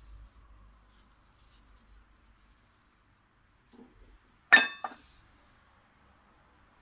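A small dish clinks twice in quick succession about halfway through, with a brief ring, just after a soft knock; otherwise only faint handling.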